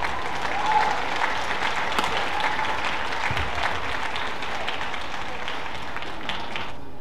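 Arena audience applauding after a badminton rally ends. The clapping cuts off suddenly near the end.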